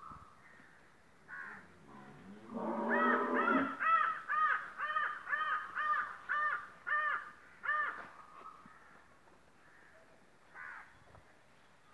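An animal calling: a rapid run of about a dozen short calls, each rising and falling in pitch, roughly two a second, from about two and a half to eight seconds in, with a lone call before and after.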